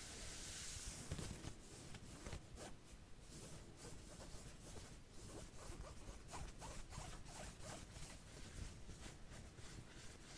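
Close-miked ASMR back-scratching sounds: a run of quick, short scratching strokes.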